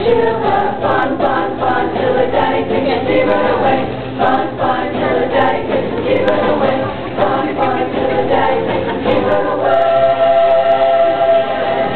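Middle-school show choir singing a pop-rock number together over a steady beat, with a long held note near the end.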